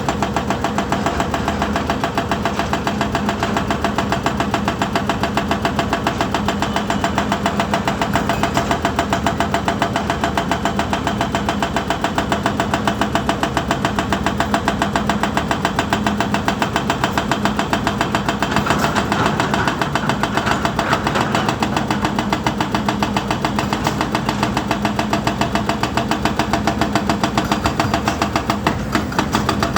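Volvo EC210D excavator's diesel engine running steadily, with an even, fast pulsing and a steady low hum. For a couple of seconds about two-thirds of the way in, a little more higher-pitched noise rises over it.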